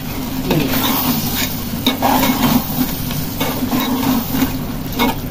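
A metal spoon stirring and scraping minced mutton keema with peas in a steel pot, over a steady sizzle of frying. There are a few sharper scrapes against the pot, and a steady low hum runs underneath.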